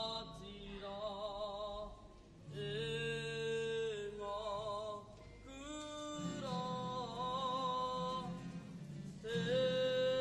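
Kapa haka group singing in long phrases, with wavering held notes and brief gaps between the phrases.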